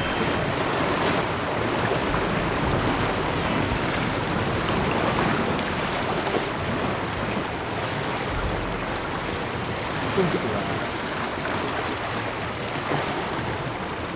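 Sea waves washing against shoreline rocks, mixed with wind buffeting the microphone: a steady, even rush.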